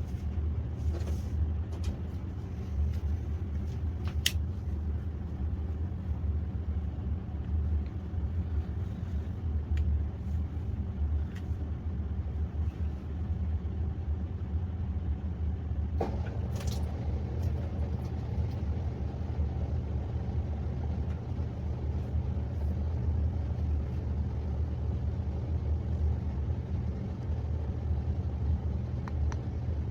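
COMFEE countertop dishwasher running, a steady low rumble with a few faint clicks.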